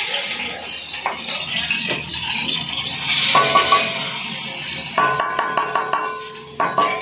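Steel pots and utensils clanking on a gas stove: three ringing metallic knocks, the first about three seconds in and the last near the end, after a hissing noise in the first half.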